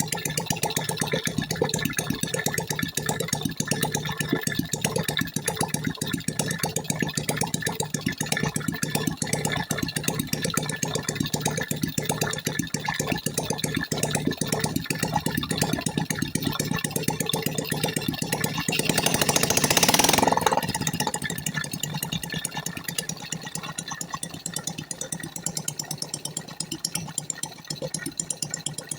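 Freshly overhauled engine idling steadily, run to check that the oil pump line delivers oil. About twenty seconds in, a louder rush of noise rises for a second or so and dies away.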